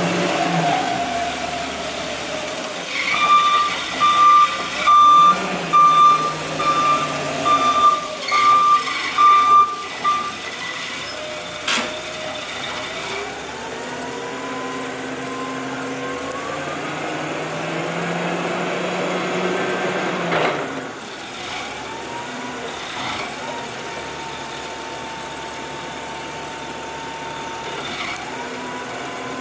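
Hyster H1.6FT LPG forklift running, its reversing alarm beeping about once every three-quarters of a second for several seconds before it stops about ten seconds in. Later the engine note rises and holds as the mast lifts the forks.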